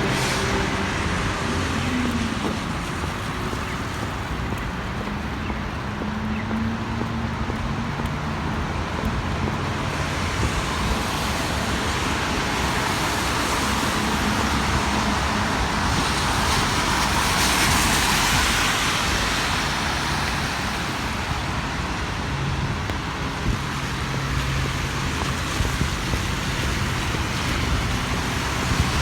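City street traffic on a wet road: a steady hiss of tyres with a low engine hum, and one vehicle passing more loudly about two-thirds of the way through.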